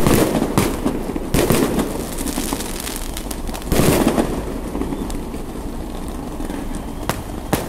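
Fireworks display: aerial shells bursting with loud bangs, the biggest at the start, about a second and a half in and near the middle, with smaller pops and crackling in between.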